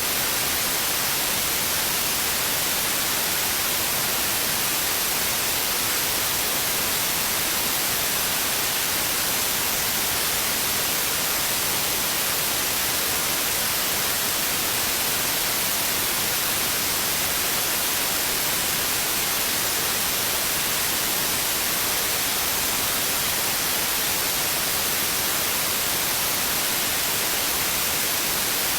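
White noise: a steady, even hiss spread evenly across all pitches, strongest in the high end, unchanging throughout, played as a sleep aid.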